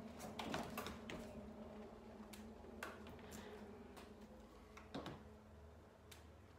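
Faint scattered clicks and light knocks of handling as a McIntosh XR200 tower speaker is set upright on its base, over a steady low hum.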